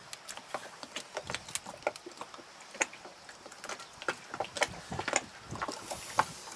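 Irregular small clicks and taps of a plastic Raymarine autopilot control unit being handled and worked out of its mounting at the wheel pedestal.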